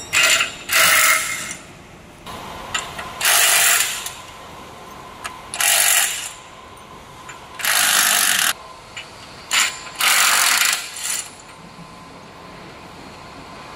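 Workshop tool noise: about six short, harsh bursts, each lasting half a second to a second and spaced irregularly, with a faint steady hum between them.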